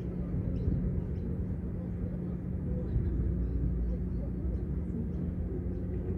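Steady low outdoor rumble with a constant low hum, and faint, scattered short high chirps.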